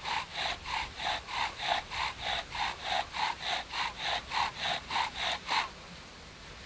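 Bow drill for friction fire: the wooden spindle spun back and forth in the hearth board, an even rubbing rhythm of about four strokes a second. It stops suddenly just under six seconds in, with the hearth board smoking as an ember forms.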